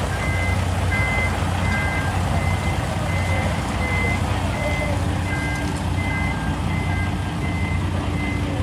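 Vehicle reversing alarm beeping about twice a second over a diesel engine running steadily, from a truck or heavy machine backing up. A second, lower-pitched beep joins at times.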